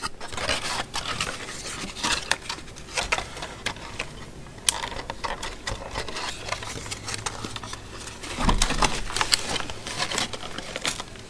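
Cardboard and plastic tape-measure packaging being handled and taken apart: rustling, crinkling and many small clicks and taps, busier and louder near the end.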